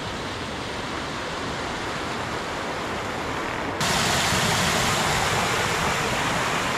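Steady rushing of a hill river in spate after heavy rain. About four seconds in, a louder, brighter splashing takes over: runoff pouring in small cascades over an eroded earth bank onto stones.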